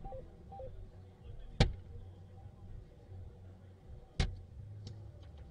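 Two soft-tip darts striking an electronic dartboard: two sharp hits about two and a half seconds apart, over low hall noise.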